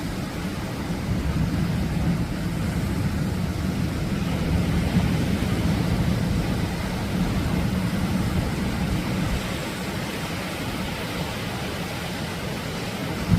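Atlantic surf: a continuous rush of breaking waves with a deep rumble, swelling a little around the middle and easing toward the end.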